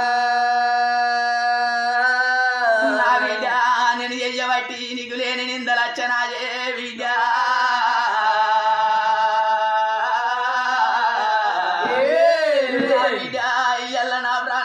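A folk storyteller's voice singing a drawn-out lament in oggu katha style, long held notes with a wavering pitch and a swooping phrase near the end, over a steady low drone.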